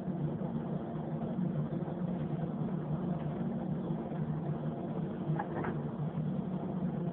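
Paint spray booth ventilation fans running with a steady low hum and rush of air, with a faint brief clatter about five and a half seconds in.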